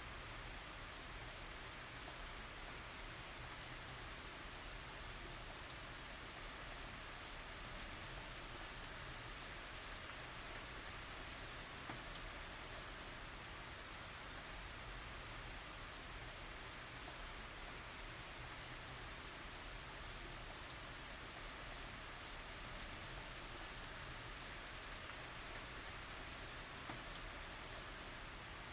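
Steady tropical rain falling, with fine pattering drops and no thunder.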